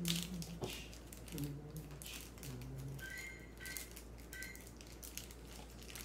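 Low-level room sound: a faint voice in the background, and three short two-tone electronic beeps about halfway through, with a few light clicks.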